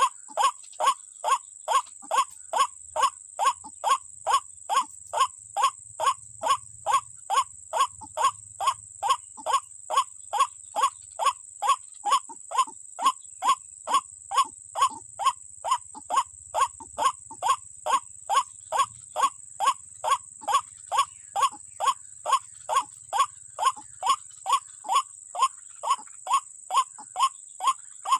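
White-breasted waterhen (ruak-ruak) calls repeated in a steady rhythm, about two short notes a second.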